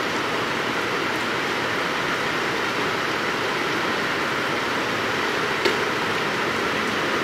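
Heavy rain pouring down on a flooded street, a steady hiss of falling rain and running water. One short sharp click about five and a half seconds in.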